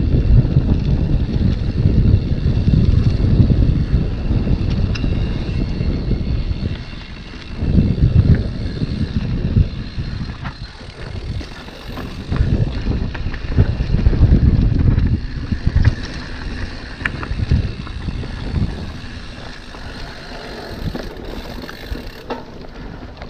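Mountain bike descending a dirt singletrack: wind buffeting the microphone over a low rumble of tyres on dirt and loose stones, with scattered rattling clicks from the bike. The rumble swells and eases several times as the speed and terrain change.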